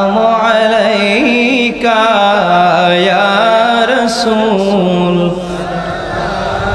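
A solo voice singing a Bengali Islamic devotional song (gojol), drawing out long melismatic notes with vibrato.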